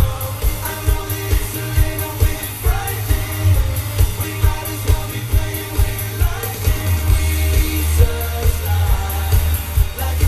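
Live pop music: male vocals sung into microphones over a loud backing track with a heavy, steady bass beat.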